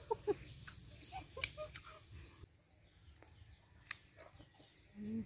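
Outdoor rural ambience: two short, high bird chirps in the first two seconds, then a steady thin high insect tone from about halfway through, with a few sharp clicks.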